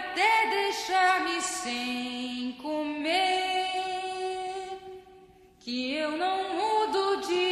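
A woman singing a slow, solo vocal line in two phrases, with a short break about five seconds in.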